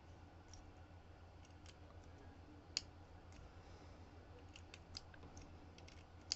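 Faint, scattered small clicks and ticks of metal lock parts and tweezers being handled while working on the pins of a disassembled Dom RS8 lock, over a low steady hum.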